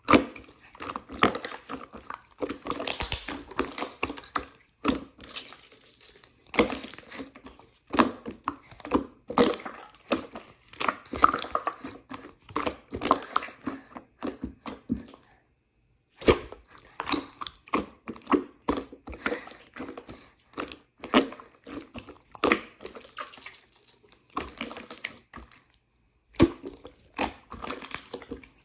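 Hands squishing, stretching and folding marbled slime, with irregular sticky clicks and pops of trapped air. It breaks off twice for a moment.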